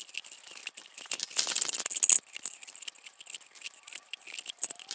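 Paper bills rustling and scraping against plastic, with light rattling, as they are shaken out of a small 3D-printed cube bank. The rustling is busiest for about a second starting a second in.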